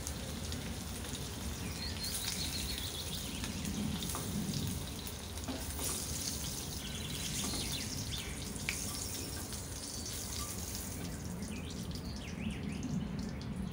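Hot oil sizzling and spitting steadily around whole boiled eggs frying in a pan.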